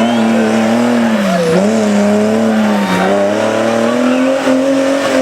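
Off-road buggy engine running hard and revving, its pitch climbing then dipping and rising again a few times as the throttle is worked.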